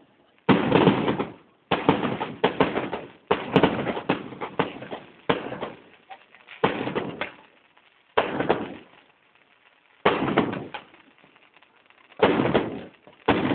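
Fireworks exploding overhead: about a dozen sharp bangs at irregular intervals, some in quick succession, each trailing off over half a second to a second.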